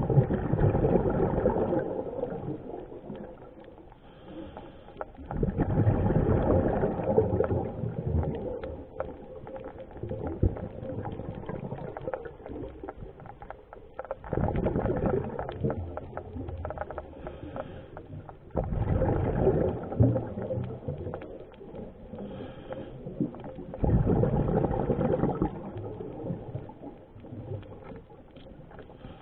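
Scuba diver breathing through a regulator: each exhalation sends a rush of bubbles lasting two or three seconds, five times, with quieter inhalations between.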